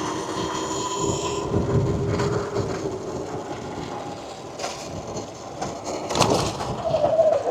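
Small mini bike engine running with a steady note that drops out about a second and a half in. Knocks and rattles follow, with two sharp knocks in the second half.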